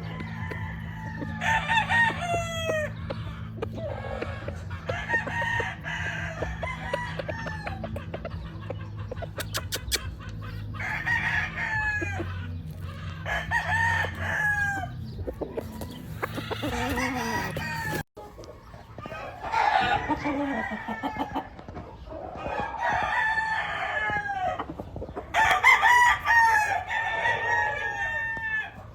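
Gamefowl roosters crowing again and again, several birds calling one after another and overlapping, with some clucking. A steady low hum lies under the first two-thirds and stops abruptly at a break.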